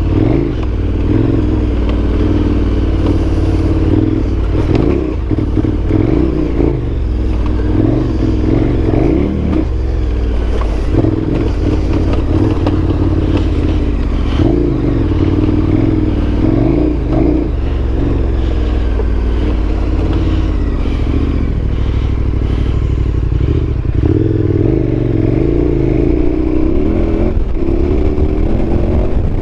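KTM 1290 Super Adventure's V-twin engine running under a rider on a dirt trail, its pitch rising and falling as the throttle opens and closes, with scattered knocks and clatter from the bike over rough ground.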